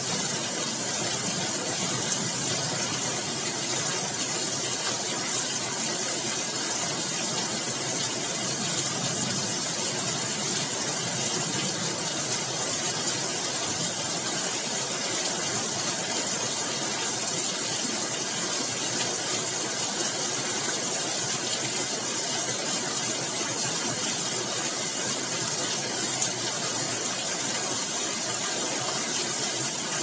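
Heavy rain pouring steadily in a storm, an even hiss with no let-up, with a couple of faint ticks, about two seconds in and near the end.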